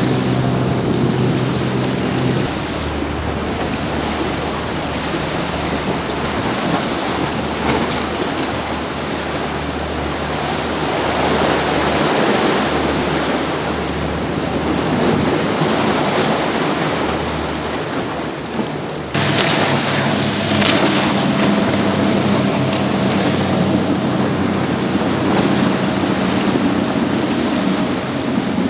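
Powerboat engines running through the inlet over the rush of waves, with wind buffeting the microphone. The engine sound drops to a low hum after a couple of seconds, then changes abruptly about two-thirds of the way through to a stronger, higher-pitched engine drone.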